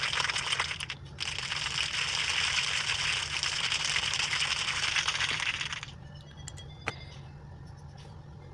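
Sound effect of a dense crackling hiss made of many fine clicks. It plays in two stretches: a short one of about a second, then a brief break, then about five seconds more, stopping about six seconds in.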